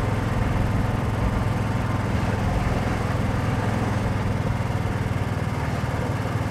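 Golf cart's engine running steadily as the cart drives along a street, with a low, even hum.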